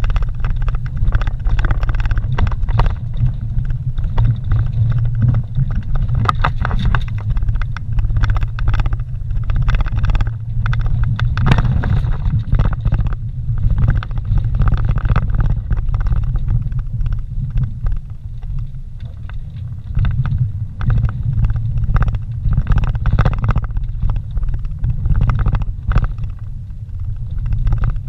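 A vehicle driving over a rough dirt and rock trail, heard from inside the cab: a steady low rumble of engine and tyres, broken by frequent short knocks and rattles as it goes over bumps.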